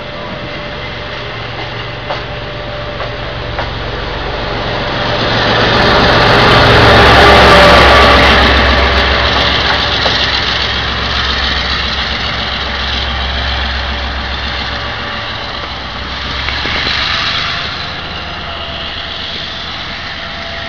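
Diesel locomotive's engine running with a deep steady drone as it passes close by with its passenger train, loudest about seven seconds in, then fading as it pulls away along the track.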